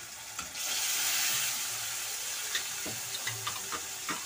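Katla fish pieces, rubbed with turmeric and salt, sizzling in hot oil in a metal kadai: a steady frying hiss, with several sharp crackles of spitting oil in the second half.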